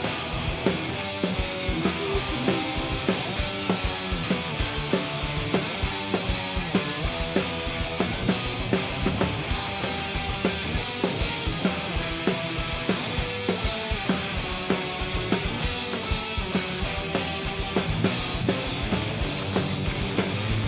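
Rock band playing an instrumental passage, drum kit hitting steadily under guitar.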